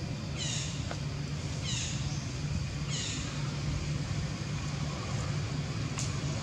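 Outdoor ambience: a steady low drone, with a high falling call repeated four times about a second apart in the first three seconds, and a faint click or two near the end.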